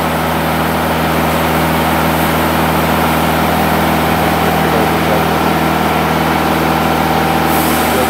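Diesel engine of a Timberking 2000 band sawmill running steadily, as the hydraulically driven saw head lowers to the next cut.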